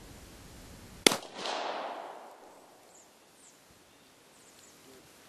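A Steyr-Hahn M1912 pistol fires a single 9mm Steyr round about a second in: one sharp crack followed by an echo that dies away over about a second.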